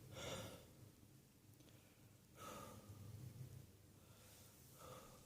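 A person breathing faintly: three soft, breathy exhales or sighs, one at the start, one about two and a half seconds in and one near the end.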